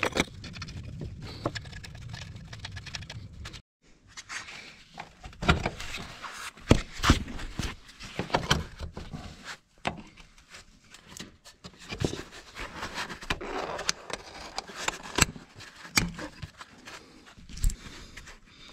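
Gloved hands working a silicone intercooler charge pipe onto its fitting: scattered scraping, rubbing and short knocks. A steady low hum runs for the first few seconds and cuts off suddenly.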